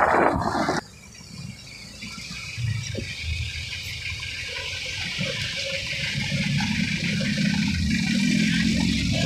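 Rushing, water-like noise of a vehicle ride on a wet road, cutting off abruptly about a second in. Then a low engine rumble from the surrounding traffic grows steadily louder.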